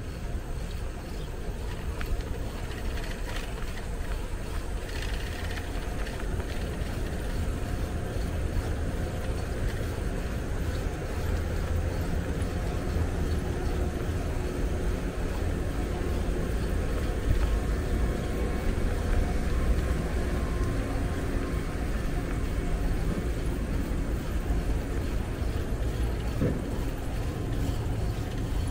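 Steady low wind rumble on the microphone of a bicycle being ridden, mixed with the hiss of its tyres on the road.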